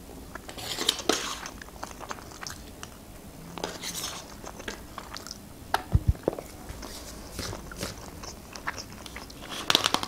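A person eating close to the microphone: biting and chewing, with many small scattered clicks. There is a low thump about six seconds in, and the sounds grow denser near the end.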